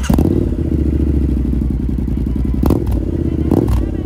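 Triumph Scrambler 1200 XC's parallel-twin engine idling steadily through a TEC exhaust with the baffle taken out, just after starting. Two short sharp sounds come about two-thirds of the way through and near the end.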